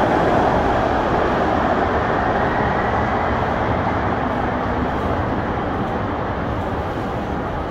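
A tram running through a stop, the noise of its wheels on the rails and its motors slowly fading as it moves away. A faint rising whine can be heard in the first few seconds.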